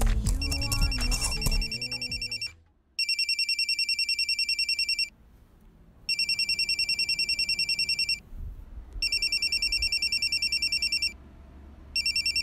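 Mobile phone ringing with a fast, high electronic trill. Each ring lasts about two seconds, with about a second's pause between them, for four rings and the start of a fifth. Background music fades out during the first ring.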